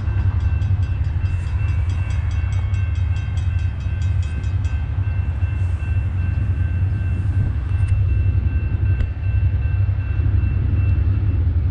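Railroad grade-crossing bell ringing rapidly, its strikes fading out about five seconds in, with a steady tone held underneath. A loud, steady low rumble runs throughout.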